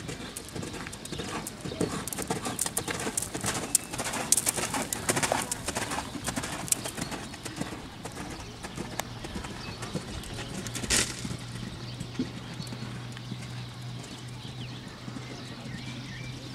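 A horse's hoofbeats as it canters and jumps on a sand arena, with a busy run of thuds in the first half. One sharp knock comes about eleven seconds in, and a steady low hum runs from about ten seconds on.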